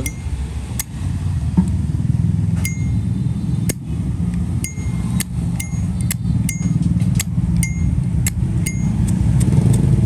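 Zippo Armor lighter's lid being flicked open and snapped shut over and over: more than a dozen sharp metallic clicks, many followed by a short bright ring, with its cam freshly adjusted. A steady low rumble like traffic runs underneath.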